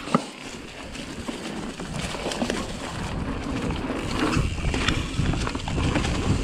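Pivot Mach 5.5 full-suspension mountain bike rolling along a leaf-covered dirt singletrack: a steady rumble of tyres on dirt with the bike's scattered clicks and knocks, and wind on the microphone. A sharp knock comes just after the start, and the rumble grows louder in the second half.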